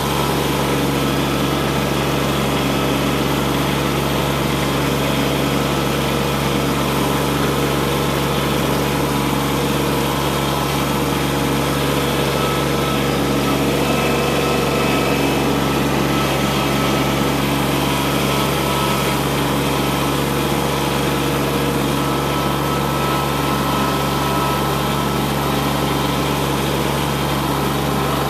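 Kubota B2601 compact tractor's three-cylinder diesel engine running at a steady speed, heard from the driver's seat.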